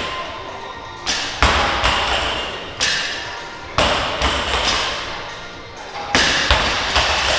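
Loaded barbell with bumper plates hitting the gym floor during deadlifts: about eight heavy thuds, some in quick pairs as the plates bounce, each with a ringing, echoing tail.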